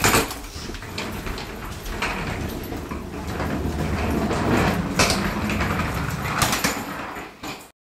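Shuffling footsteps and rustling bags as several people walk out of a room, with a few sharp knocks, the loudest right at the start and about five seconds in. The sound cuts off abruptly near the end.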